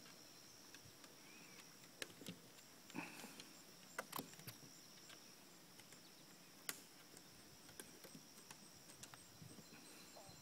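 Near silence with a steady high insect trill, like crickets, and a few short faint clicks and knocks, about seven in all, most of them between two and five seconds in.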